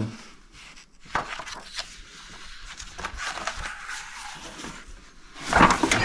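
Pages of a large old book being turned by a gloved hand: paper rustling and sliding, with a few short soft knocks in the first couple of seconds and a louder burst of sound just before the end.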